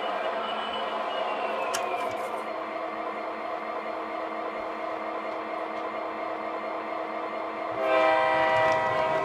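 O scale model diesel locomotive's onboard sound system running a steady diesel engine drone, with a multi-note horn blast near the end lasting about a second.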